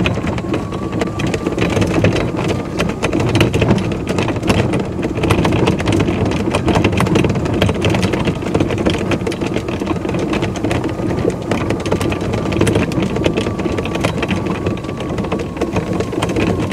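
Racka RGC1 48-volt electric golf cart climbing a steep grassy hill under load, slowing as it goes. A faint steady motor whine sits over a steady rumble and a dense rattle of loose body hardware, not yet tightened after shipping.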